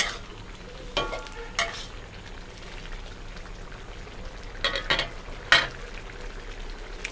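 Curry bubbling and sizzling in a metal wok as a metal spatula stirs it, with sharp knocks and scrapes of the spatula against the wok about a second in and again around five seconds in.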